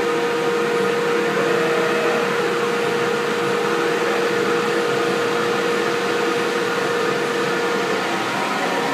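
Shop dust collector running steadily, a constant rush of air with a steady hum, drawing suction through the clear flexible hose to the CNC router's dust shoe.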